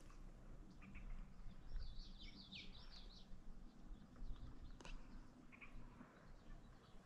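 Faint songbird singing: a quick warbling phrase of high notes about two seconds in, with a few short chirps scattered through the rest. A single sharp click comes near five seconds, over a steady low rumble.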